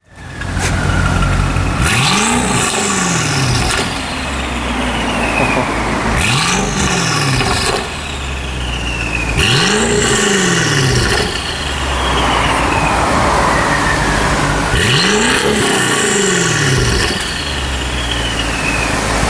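Tuned BMW M6 engine, G-Power modified, revved hard about four times a few seconds apart, the pitch climbing and dropping back with each blip. A high whine slides down after each rev.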